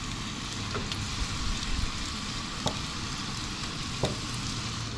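Pieces of flour-coated crappie and bluegill frying in hot oil in a skillet, a steady sizzle with a few small pops or ticks scattered through it.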